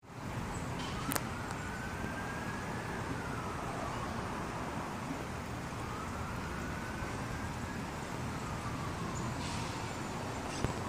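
A siren wailing slowly up and down, rising and falling twice, over a steady hiss of street traffic. There is a sharp click about a second in.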